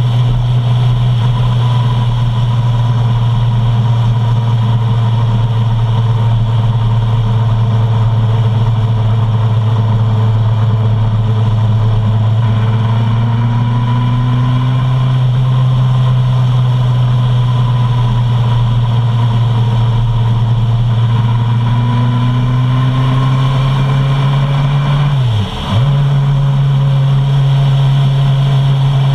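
Suzuki Bandit 650's inline-four engine running steadily at cruising speed, with wind and road noise. About 25 seconds in, the engine note drops briefly and then picks up again.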